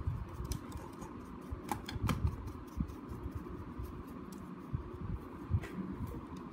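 A small dry brush sweeping over a Lego brick model, its bristles scraping across the plastic with a scatter of small clicks and ticks, a few sharper ones about two seconds in and again near the end.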